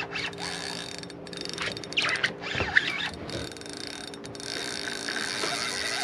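Spinning fishing reel clicking and ratcheting as line is wound in against a hooked fish on a hard-bent rod.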